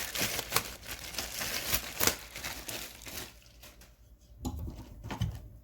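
Packaging crinkling and rustling as a ratchet is handled and unwrapped: busy crackling for about three seconds, then quieter, with two short rustles near the end.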